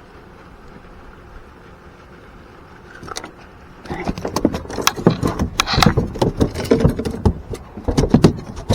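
A freshly caught bass being landed and handled in a boat: rapid, irregular clattering and knocking starting about three seconds in, over faint steady wind noise.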